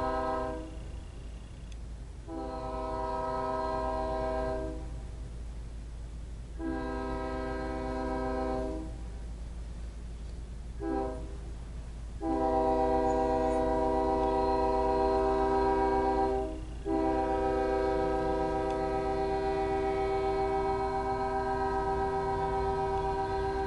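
BNSF freight locomotive's multi-chime air horn sounding the grade-crossing signal: a blast that ends just after the start, then two long blasts, one short blast, and a long blast that runs into a final held blast lasting to the end. A steady low diesel rumble runs underneath.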